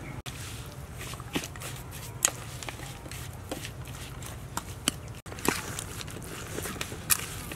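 Metal spoon stirring a coarse paste of ground spices, peanuts and chili in a stainless steel bowl, with scattered clinks and scrapes against the metal, coming thicker in the second half.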